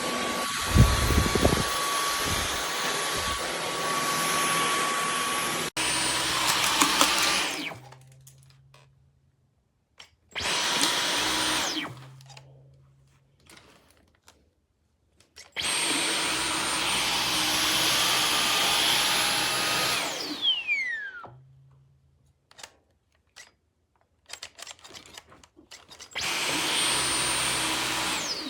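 Dyson V15 Detect cordless stick vacuum running in stop-start bursts. Each time it stops, its high motor whine glides down as the motor spins down. There are heavy low thumps about a second in.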